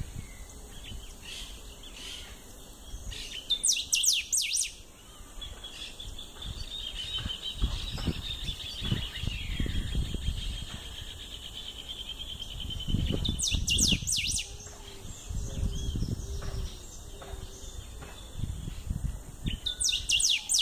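Caged picahueso (golden-billed saltator) singing: three short, loud song phrases spaced several seconds apart, with a softer high trill running between the first two.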